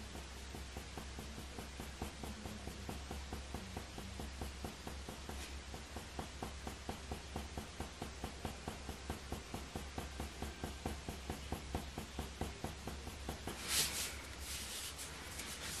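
Faber-Castell Polychromos coloured pencil laying down short, quick hair strokes on hot-press watercolour paper: a faint, rhythmic scratching of about three or four strokes a second. A brief louder rustle comes near the end.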